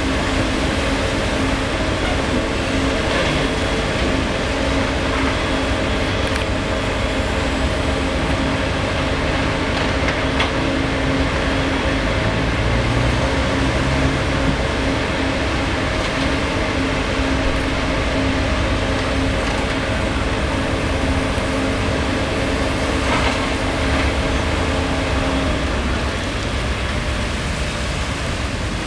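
Liebherr 924 Litronic long-reach excavator running steadily while it dredges. Its engine and hydraulics give a constant low rumble with a steady multi-tone hum, and the hum drops away near the end.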